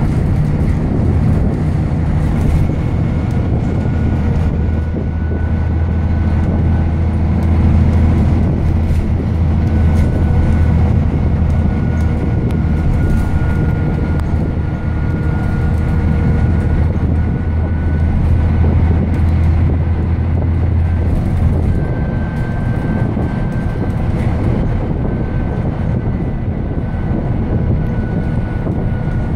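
Alexander Dennis Enviro 400 double-deck bus on the move, heard from inside the passenger saloon: its diesel engine drones deeply under load over steady road and body noise, with a faint high whine running through it. About twenty seconds in, the deep drone eases off as the engine comes off load.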